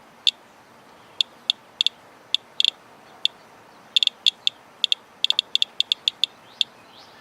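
Geiger counter clicking at random intervals as it measures the radioactivity of a rainwater sample. The clicks are short and high-pitched, about two dozen of them, coming faster from about halfway through.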